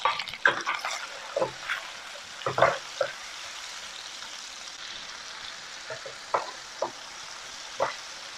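Tomato chunks sizzling in hot oil in a nonstick wok, stirred with a wooden spatula that scrapes and knocks against the pan, most often in the first three seconds, over a steady sizzle.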